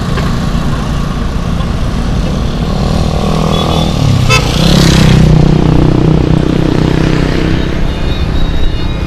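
Road traffic: a steady engine rumble, with a motorcycle passing close about four to five seconds in, the loudest moment, then fading.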